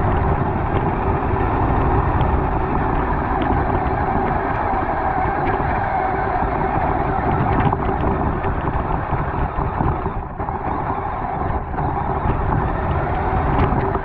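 Onboard sound of a radio-controlled scale side-by-side (UTV) driving: steady motor and gear noise with tyre rumble over pavement and grass. It dips briefly about ten seconds in, then picks up again.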